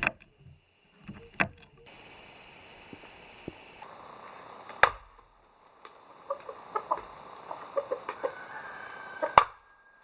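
Chickens clucking in a run of short calls through the second half, with two sharp knocks, one near the middle and one just before the end. A steady high-pitched buzz fills a couple of seconds early on.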